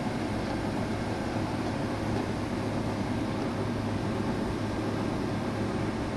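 Refrigeration condensing unit running: semi-hermetic compressor and condenser fans giving a steady, even hum with no change.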